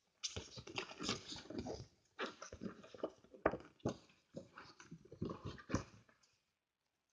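Printed cardboard game board being handled, turned over and slid across a table: irregular rustling and scraping that stops about six seconds in.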